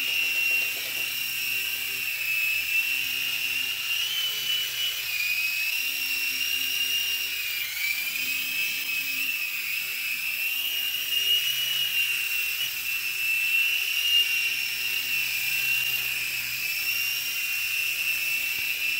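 Blade mCX2 micro coaxial electric RC helicopter hovering: a steady high motor whine over a low rotor hum, wavering slightly in pitch and dipping briefly about eight seconds in.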